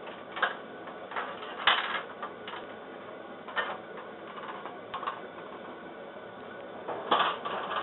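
Scattered short knocks and clatters, as of things being handled and set down, over a steady hiss, with a cluster of them near the end.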